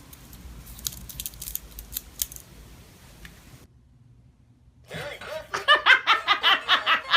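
A few light clicks and taps, then, about five seconds in, a person laughing hard: loud, pitched laughs repeating about three times a second.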